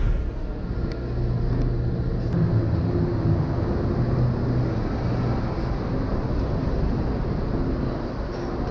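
Steady low rumble of background noise with a faint hum, with a couple of faint clicks about one and two seconds in.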